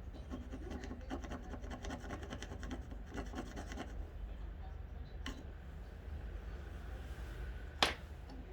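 Rapid scraping and rubbing of the small metal reel seat parts of a fishing rod being worked by hand, with a sharp click about five seconds in and a louder one near the end.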